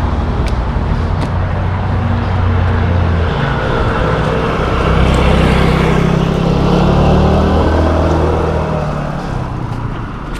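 Motor vehicle engine running while driving, its pitch rising about halfway through and falling again near the end, with road and wind noise.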